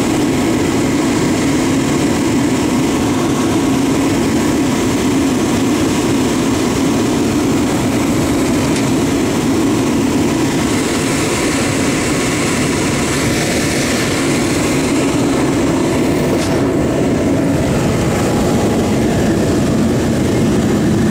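Salamander forced-air heater running steadily, its fan and burner making a loud, even rush of noise as it blows heat onto a frozen hot water pipe to thaw it.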